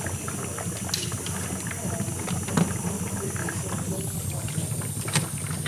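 HHO electrolysis cell running at full output, gas bubbling and hissing through the cell and hoses over a steady low hum, with many small crackling ticks.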